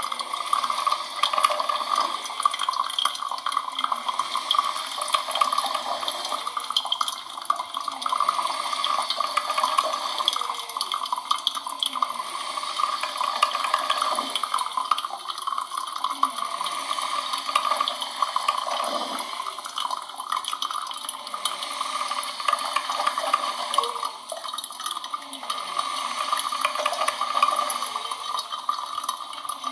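Coffee machine running: a steady watery hiss with small irregular gurgles.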